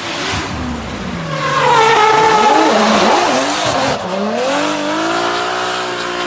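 A car drifting, its engine revving up and down as the throttle is worked while the tyres squeal and skid, the tyre noise loudest about two to three seconds in. Near the end the engine revs climb and hold high.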